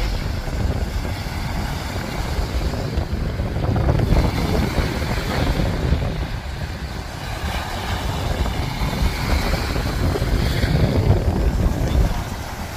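Wind buffeting the microphone in an uneven, gusting low rumble, over the wash of small surf breaking on the beach.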